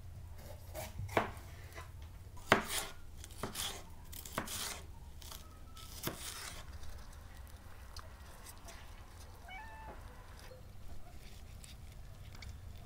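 Knife chopping on a cutting board: a handful of sharp, irregular knocks in the first six seconds. A brief, high, wavering animal call follows about ten seconds in.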